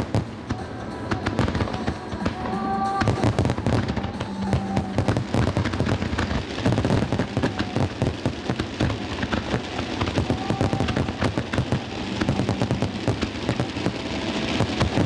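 Fireworks display going off in dense, rapid crackling and popping, with music playing underneath.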